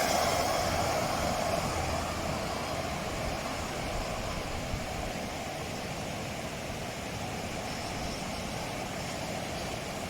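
A motor vehicle passing close by on the road, its sound fading away over the first two or three seconds and leaving a steady rushing noise.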